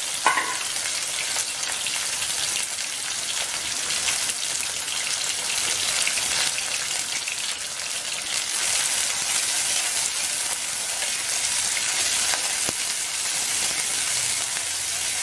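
Pieces of baby corn frying in hot oil in an aluminium kadhai: a steady sizzle with fine crackling.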